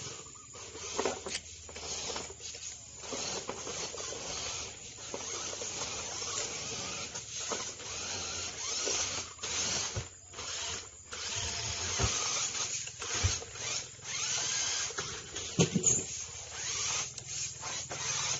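Small electric motors and geared drivetrains of radio-controlled 4x4 trucks whining in stop-start bursts as they crawl over dirt, dry leaves and a ramp, with tyres scrabbling and a few sharp knocks as they climb onto a stack of old tyres.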